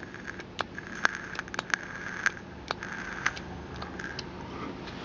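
Vape atomizer coil on a Sigelei 19 mechanical mod being fired: faint sizzling that comes and goes, with many irregular sharp crackling clicks.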